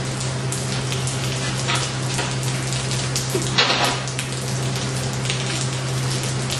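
Electric arc welding: a continuous fine crackle like frying over a steady electrical hum, with one louder crackle a little past halfway.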